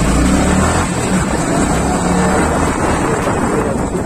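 Yamaha R15's single-cylinder engine running as the motorcycle rides along, with steady wind rush on the helmet microphone.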